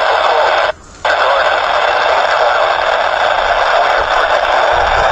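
Loud, steady radio static hiss from a weather radio receiver between broadcasts, cutting out briefly about a second in.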